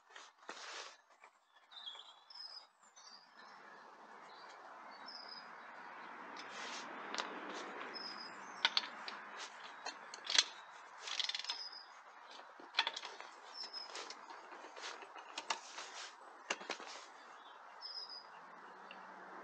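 Sharp clicks and knocks of steel wheel bolts being worked loose by hand on a jacked-up van wheel, the loudest a couple of knocks about halfway through, with small birds chirping now and then over a steady background hiss.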